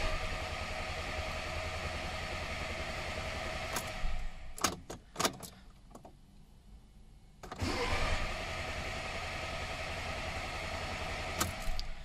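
Volkswagen Golf 1.4 TSI petrol engine cranking on the starter without catching, heard from the driver's seat. It makes two attempts of about four seconds each, separated by a short pause with a few clicks. This is a crank-no-start fault, and low fuel rail pressure was logged when such no-starts happened.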